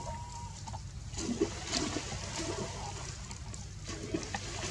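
Water sloshing and splashing as a macaque swims with a baby clinging to its back, busiest and loudest in the second and third seconds, over a steady low rumble.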